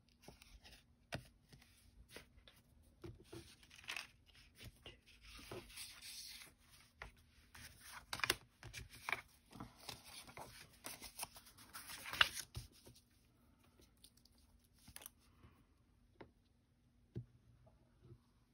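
Cardstock and patterned paper being handled, slid and laid down on a cutting mat: faint, irregular rustling with light taps. It thins out to only an occasional sound for the last few seconds, over a faint steady hum.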